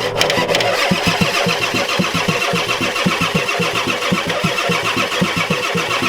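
Ford 7.3L IDI V8 diesel being cranked by its starter for about six seconds in a steady, rhythmic chug, cutting in suddenly and stopping at the end, without firing. Fuel has not yet reached the cracked-open injectors.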